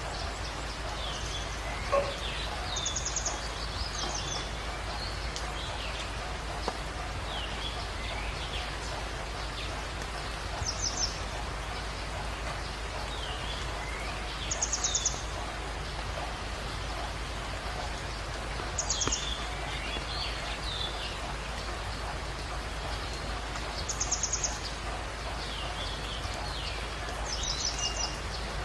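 Night animal calls: short, rapid, high-pitched pulsed calls repeating every four to five seconds, each with a few short chirps, over a steady hiss. A single sharp knock about two seconds in.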